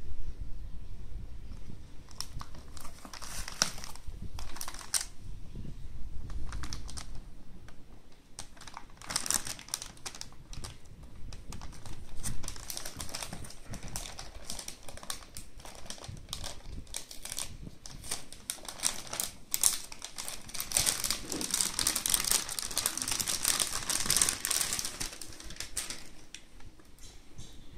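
Anti-static plastic bag crinkling and crackling as it is handled and peeled off a graphics card, in irregular crackles that turn into a dense, continuous crinkle in the last third.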